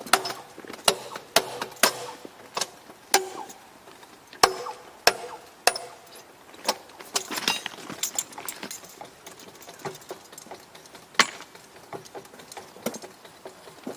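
Irregular sharp metallic clanks and clinks of hand tools knocking against steel rail and track fittings, some ringing briefly. The strikes come thick in the first half and grow sparse after about eight seconds.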